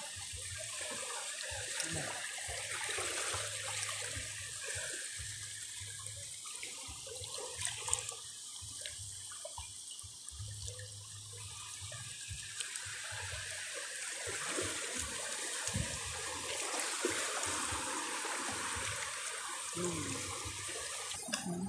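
Shallow seawater washing and trickling steadily, with a few small clicks about halfway through.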